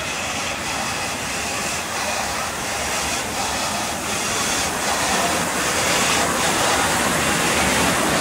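FS Class 740 2-8-0 steam locomotive moving slowly: a steady hiss of steam with regular beats about every two-thirds of a second, which fade out after about six seconds as the hiss grows a little louder.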